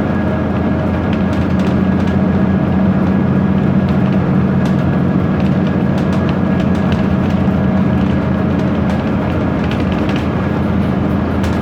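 BMC Procity city bus under way, its Cummins ISB diesel running steadily behind a loud rumble, while window glass and interior panels rattle and click again and again.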